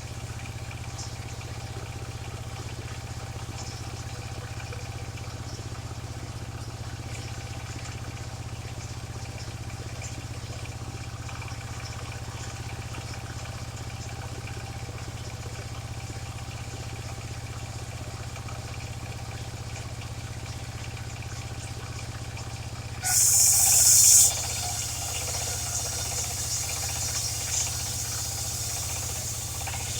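Mobile circular sawmill's engine running steadily. Near the end the saw blade bites into a waru log with a loud, high hiss for about a second, then carries on cutting more quietly.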